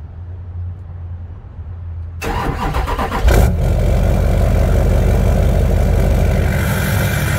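Duramax LLY 6.6-litre V8 turbo-diesel turning over and catching about two seconds in, with a loud surge a second later, then settling into a steady idle heard at the tailpipe of a 4-inch straight-pipe exhaust.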